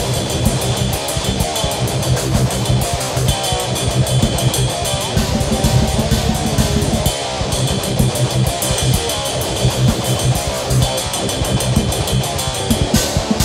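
Loud rock music with guitar and a drum kit keeping a steady beat.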